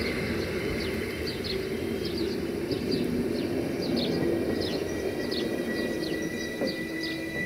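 Passenger train rolling away over the rails, a steady rumble with held tones slowly fading, and a thin high steady tone that grows stronger near the end. Birds chirp repeatedly throughout.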